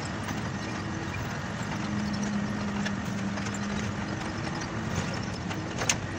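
Inside the cab of a moving Ashok Leyland Ecomet truck: a steady engine hum under road and tyre noise, with a sharp click near the end.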